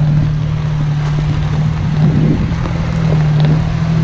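Off-road vehicle's engine running at steady revs, a constant low drone with rough mechanical and road noise over it.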